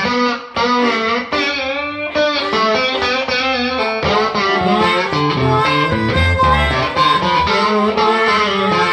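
Blues guitar music, with picked notes that bend up and down in pitch. About four seconds in, the playing grows fuller and a deeper bass comes in.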